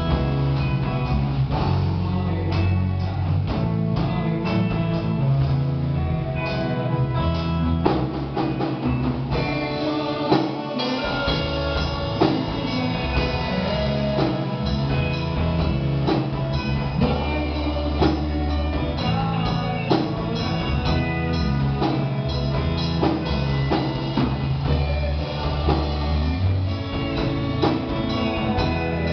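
A band playing an instrumental passage of a rock song on guitar and drum kit. About nine seconds in the arrangement fills out and gets denser.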